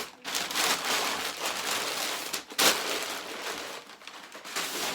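Packaging being handled and opened: irregular rustling and crinkling of wrapping, with one sharper, louder rip or crackle about halfway through.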